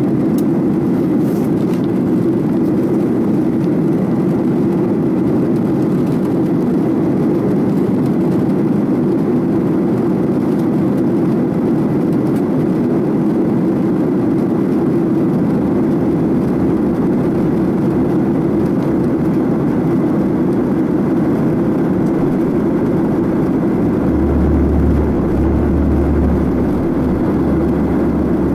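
Steady roar of jet airliner cabin noise in flight: engine and airflow noise heard from a window seat. A deeper rumble swells in and out near the end.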